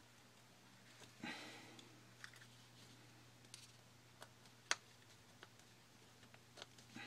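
Faint clicks and taps of a small screwdriver tightening the tiny screws of an iPhone 4, with a soft rustle about a second in and one sharper click near the five-second mark, over a low steady hum.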